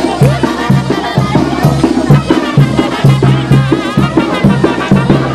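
Lively band music with drums and a steady, bouncing bass line.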